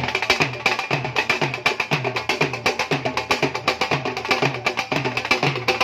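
Dhol drumming: a fast, dense run of sharp strokes on the high side over regular deep bass strokes that drop in pitch, about three a second.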